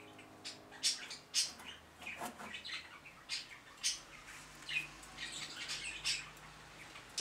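Short scrapes and crunches of a hand trowel digging and mixing soil in a wooden raised bed, with birds chirping.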